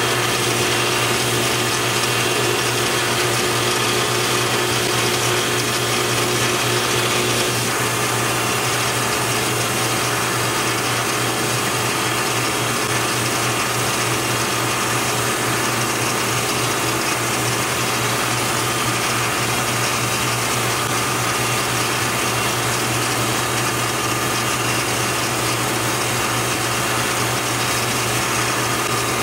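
Metal lathe running steadily, its spindle turning a brass rod while a tool bit turns down the end of the rod and peels off chips. The machine sound changes slightly about seven and a half seconds in.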